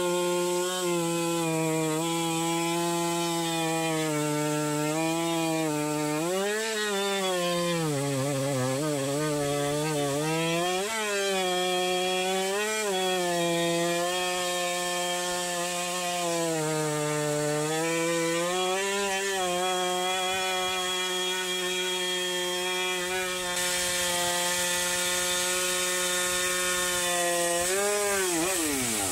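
Two-stroke chainsaw at full throttle ripping a cedar log lengthwise on a Granberg chainsaw mill. Its note sags several times as the saw slows in knots and harder wood, then picks back up in clear wood. Near the end the pitch drops away quickly as the throttle comes off.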